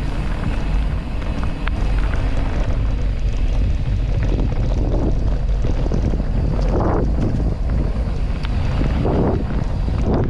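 Wind buffeting the microphone of a camera on a moving mountain bike, a steady low rumble. Under it are the noise of knobbly tyres rolling over the dirt trail and small knocks from the bike.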